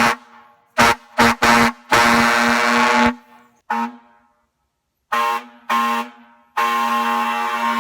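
Fire truck air horn sounding in a series of blasts at one steady pitch: three short blasts, a long blast of about a second, another short one, then after a pause two more short blasts and a long held blast near the end.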